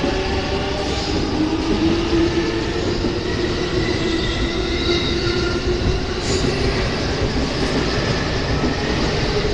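JR East E233-0 series electric train pulling away and picking up speed: a steady rumble of wheels on rail with the traction motors' whine slowly rising in pitch.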